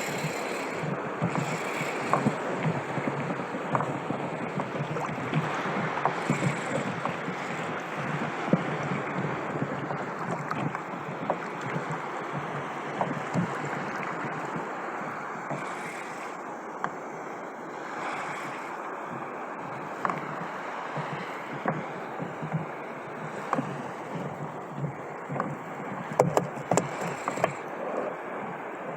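Sea water lapping and sloshing around a fishing kayak, with wind on the microphone. Scattered small knocks, several close together near the end.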